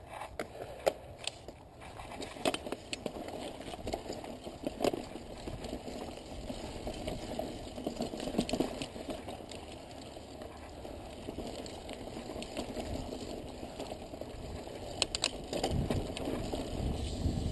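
Mountain bike riding over loose rock and dirt: tyres crunching and rolling, with frequent sharp clicks and rattles from the bike, getting louder near the end.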